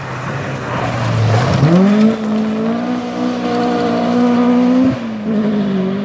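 Rally car engine on a gravel stage: the revs drop low as it slows, then about one and a half seconds in it accelerates hard. It holds high revs, loudest around two seconds in, with a quick gear change near five seconds.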